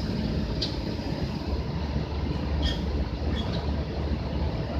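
Heavy truck engine running with a steady low rumble, with a few short high squeaks over it.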